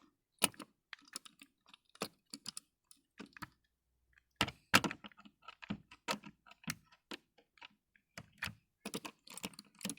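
Irregular clicks and knocks of an O gauge model train wagon and its coupling being handled by hand while it is uncoupled after derailing in a siding.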